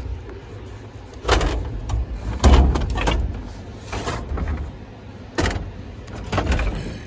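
Wooden furniture knocking and scraping as it is shifted and stepped on in a truck bed. There are about five heavy knocks and scrapes, the loudest about two and a half seconds in, over a low rumble.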